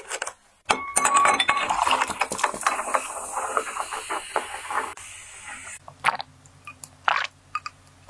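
Lightly carbonated grapefruit juice drink poured from a plastic bottle into a glass over ice: liquid splashing, with ice cubes clinking against the glass, for about five seconds. Then a few isolated clinks as the pour stops.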